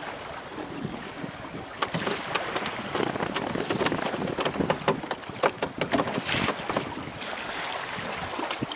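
Sea water washing against a small boat's hull with wind on the microphone, and a run of sharp clicks and knocks through the middle.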